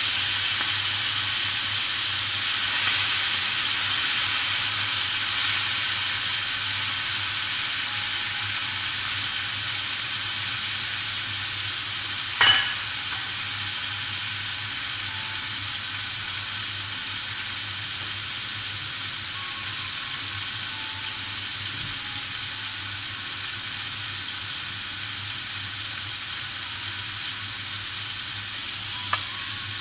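Marinated chicken pieces sizzling in a very hot frying pan: a steady frying hiss that slowly eases off, with a single sharp knock about twelve seconds in.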